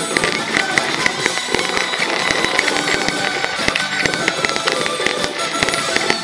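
Aerial fireworks crackling and popping in quick succession over loud background music.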